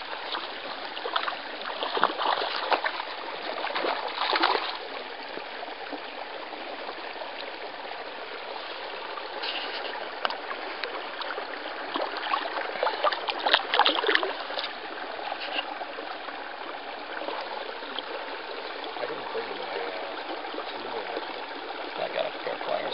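Small forest stream trickling and babbling steadily over shallow rocks, with a few louder noisy bursts about two to four seconds in and again about thirteen seconds in.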